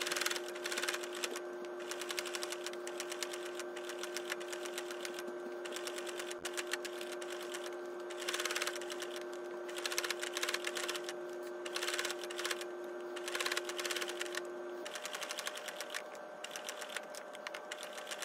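Electric sewing machine running steadily, sewing through fabric and bias tape: rapid needle clatter over a steady motor hum, with a few louder stretches and one hum tone dropping out near the end.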